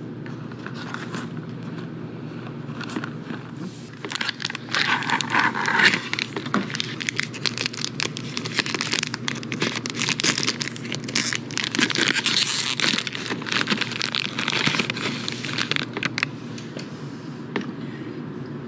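Pocky box and its foil inner pouch being opened by hand: crinkling and tearing of the wrapper. It starts about four seconds in, with the busiest stretches early and past the middle, and dies away a couple of seconds before the end.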